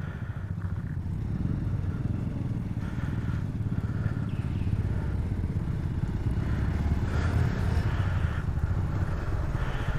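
Motorcycle engine running steadily at low revs, getting a little louder over the second half.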